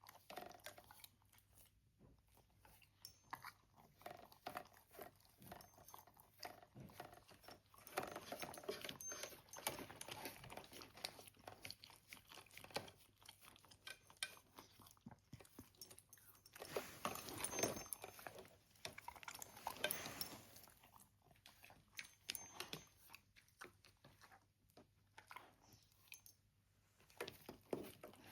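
A pet eating, chewing and crunching its food in faint, irregular clicks. The crunching is busiest in two spells, about eight seconds in and about seventeen seconds in.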